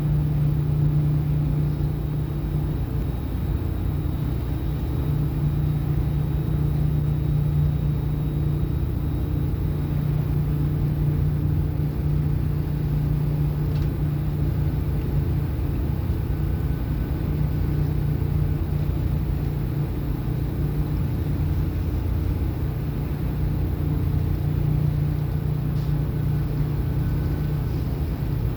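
A ship's engine and machinery running underway: a steady low drone with a deep hum and a few fainter higher tones, unchanging throughout.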